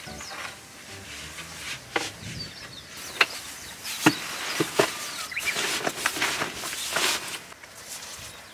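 A wooden board knocking on a van's cargo floor as it is laid down, then a rolled stuff sack and foam sleeping mats being set on it: several sharp knocks about a second apart, then a few seconds of rustling.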